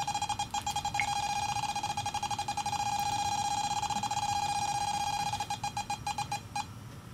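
EMF meter's audible alarm beeping at a single high pitch. The rapid beeps run together into a near-steady tone as the meter reads the smartphone's field, then break back into separate, slower beeps near the end.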